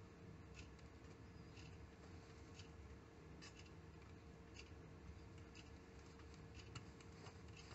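Near silence: faint steady room hum with soft, faint ticks about once a second.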